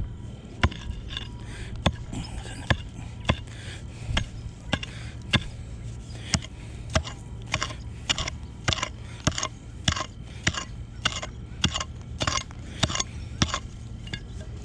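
Hand digging tool chopping repeatedly into soil and grass, about one to two sharp strikes a second, digging out a buried metal-detector target.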